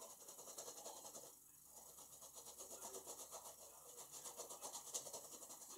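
Paintbrush scrubbing on a canvas in faint, quick back-and-forth strokes, with a brief pause about a second and a half in.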